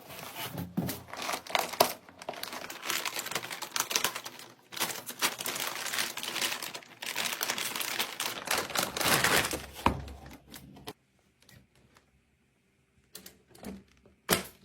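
Packaging crinkling and rustling as PC parts are handled and unwrapped, dense for about ten seconds, then a few light clicks and taps.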